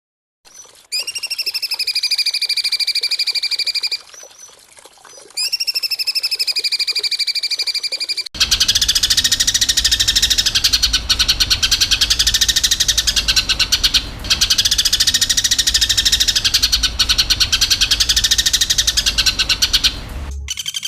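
Harsh, buzzing animal calls of the kind used as 'kasaran' training sounds for songbirds. Two separate buzzing trills of about three seconds each come first. Then, from about eight seconds in, a continuous, very rapid pulsing rasp with a low hum underneath runs until just before the end.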